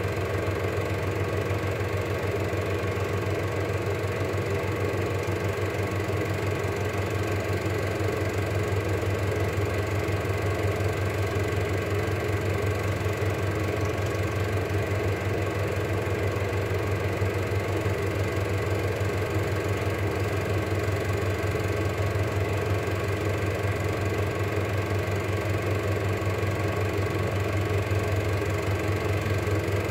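Cine film projector running steadily: a constant motor hum with the fast, even clatter of the film mechanism.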